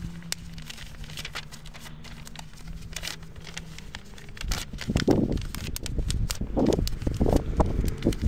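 A sheet of notebook paper rustling and crinkling as it is creased and folded into a paper airplane. A steady low hum runs under the first half, and louder low rumbles come in from about halfway through.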